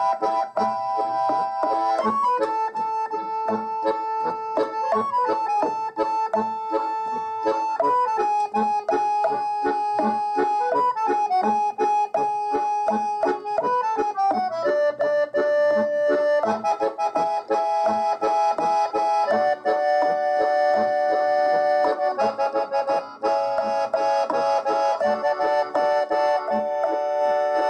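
Accordion-led background music: a lively tune with a steady beat.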